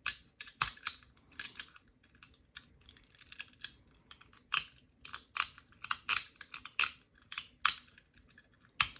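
Irregular light clicks, a couple a second, of a lever-lock pick made from a brass skeleton key working the levers inside a four-lever Ace padlock.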